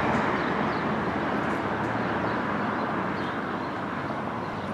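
Steady rushing vehicle or engine noise that slowly fades, with faint bird chirps about once a second.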